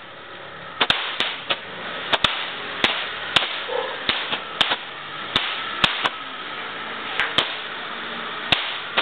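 Fireworks going off: sharp cracks at irregular intervals, roughly one or two a second, over a steady hiss.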